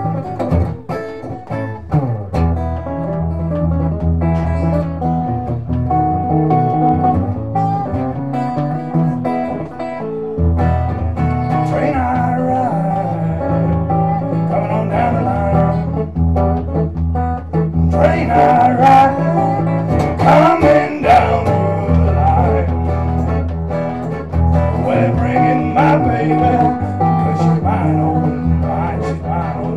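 Acoustic guitar strummed in a driving blues-country rhythm, with a heavier bass line from about ten seconds in, and a man singing over it at the microphone.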